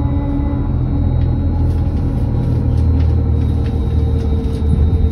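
Solaris Urbino 18.75 electric hydrogen fuel-cell articulated bus standing with its systems running: a steady low hum with a few faint steady tones above it.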